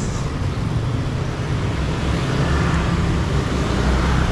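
Steady street traffic noise: vehicle engines and tyres passing, with a strong low rumble.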